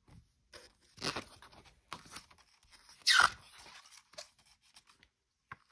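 Glossy pages of a hardcover picture book being handled and turned: a series of short paper rustles and crinkles, the loudest about three seconds in.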